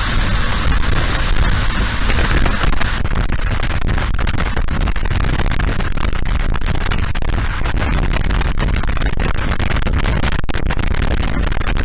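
Motorcycle riding at speed: a steady, loud rush of wind and road noise over the engine.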